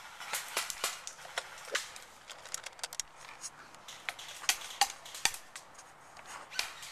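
A scatter of sharp, irregular clicks and snaps, with no steady rhythm; the loudest come about four and a half to five and a half seconds in.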